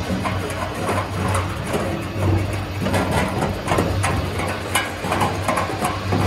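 French fries production line machinery running: the conveyor and potato-cutter motors make a steady low hum, with irregular knocks and clatter throughout.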